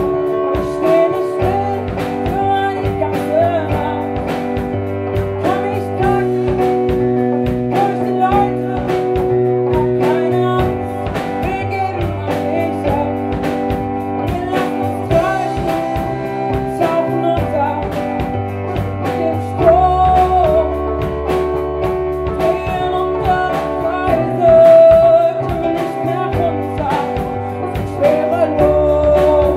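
A live rock band playing: a woman singing over electric guitar, keyboard, bass and drums, with the bass line changing every couple of seconds.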